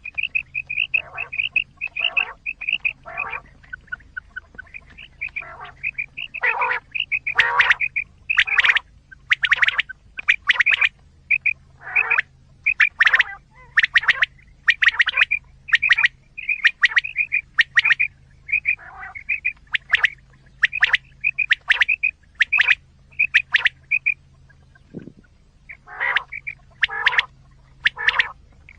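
Recorded quail calls played as a hunting lure: a call of quick high notes with a lower rasping part, repeated about once a second, with a short pause and a low thud near the end. A faint steady low hum runs underneath.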